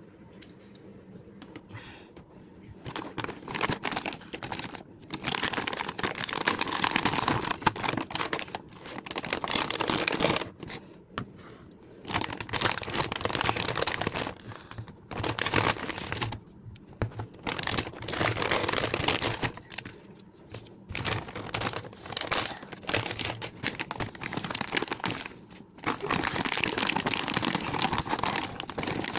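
Ice cream packaging crinkling and tearing as it is handled and opened, in bursts with short pauses, starting about three seconds in.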